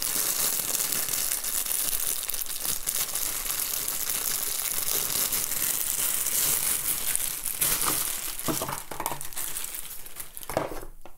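Packaging being handled and pulled open to free a radio's hand microphone. The crackling runs densely for about eight seconds, then thins to a few separate crackles near the end.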